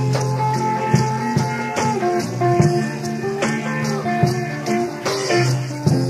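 Instrumental rock music: guitar playing held chords over a steady beat, with no vocals.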